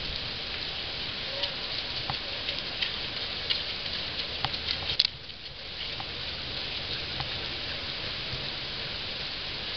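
Steady heavy rain with scattered sharp raindrop ticks. A sharp click about halfway through is followed by slightly softer rain.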